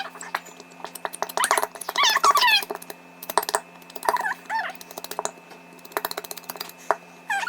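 A cat meowing several times, over a run of quick clicks and taps from things being handled on a tabletop.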